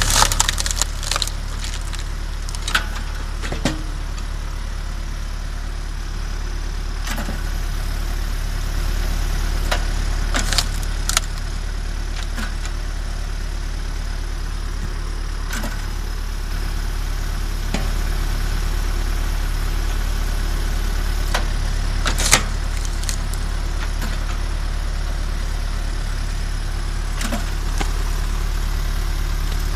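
MTZ 552E tractor's diesel engine running steadily, driving the Posch HydroCombi 22 log splitter. Sharp cracks and knocks of a log splitting and split wood falling are heard, a cluster in the first second and single ones scattered through.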